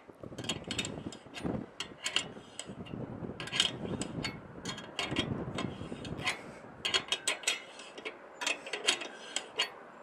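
Irregular mechanical clicking and scraping from a microwave dish mount being adjusted in elevation, the clicks coming unevenly, several to a second.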